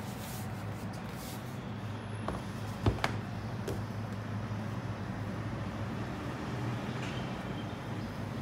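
Lenovo ThinkPad T16 Gen 1 laptop being turned over and set down on a desk: a few light knocks of the chassis against the desk, the loudest about three seconds in, over a steady low background hum.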